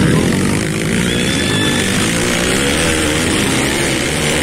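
Several off-road dirt bike engines revving and running as the bikes ride past over rough ground, their pitch rising and falling with the throttle.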